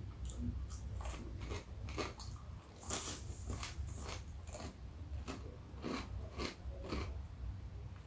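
Close-miked chewing of crispy breaded chicken nuggets. Sharp crunches come about two or three times a second, starting about a second in.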